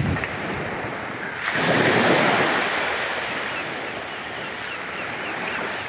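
Small waves breaking and washing up a sandy beach at the water's edge, one wash swelling about a second and a half in and slowly fading away.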